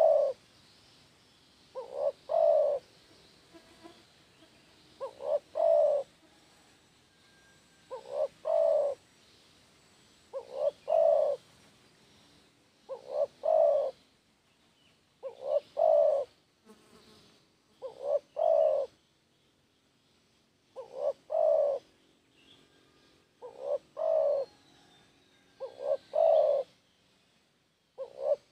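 Spotted dove cooing: a short phrase of two or three low notes, the last one longest and loudest, repeated about every two and a half to three seconds, around ten times.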